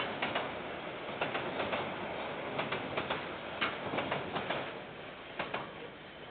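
Container freight train's wagons rolling past, with irregular wheel clicks and clacks over the rail. It fades near the end as the last wagons go by. Heard through a security camera's microphone.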